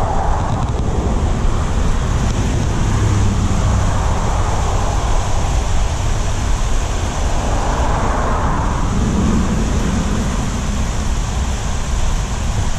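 Steady rushing of water pouring over a concrete pond spillway, with wind rumbling on the microphone.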